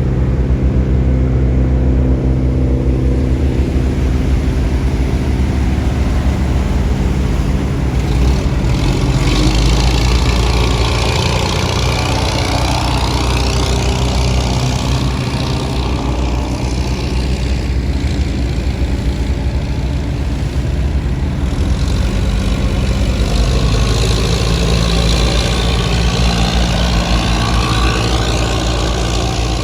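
Bottom-trawl fishing boat's diesel engine running steadily, with a deep, even hum. A rushing hiss builds over it about a quarter of the way in and fades again about two-thirds of the way through.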